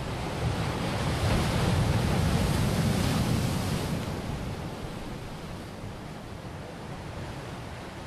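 Ocean surf breaking on rocky shore: a rushing wash of water that swells to its loudest about two to three seconds in, then eases off.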